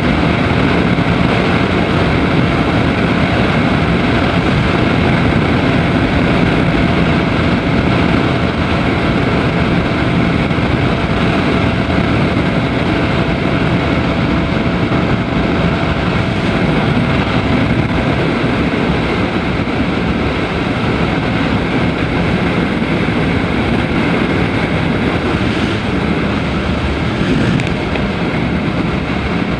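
Daelim Daystar 125cc motorcycle cruising at a steady speed, its engine running under wind rushing over the microphone.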